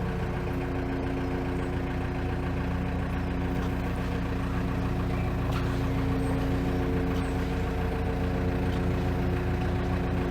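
Narrowboat's diesel engine running steadily at low revs while under way, with a fast, even low beat.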